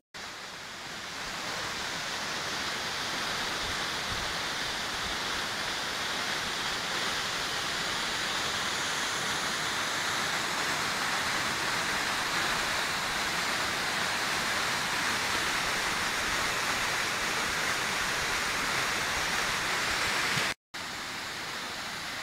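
Waterfall pouring onto rocks: a steady, even rush of falling water that fades in at the start. Near the end it cuts off abruptly, and a quieter steady rushing follows.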